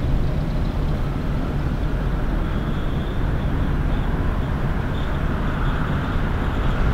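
A 1951 Buick Roadmaster's straight-eight engine running at low speed as the car creeps forward, a steady low rumble.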